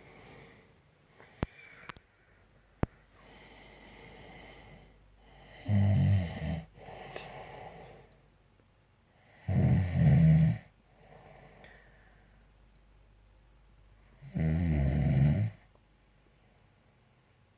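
A man snoring very loudly: three loud snores, each about a second long and roughly four seconds apart, with quieter breaths between them.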